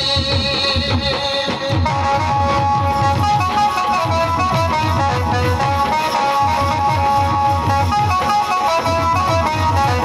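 Loud instrumental dance music: a held, note-by-note melody over a fast, steady drum beat.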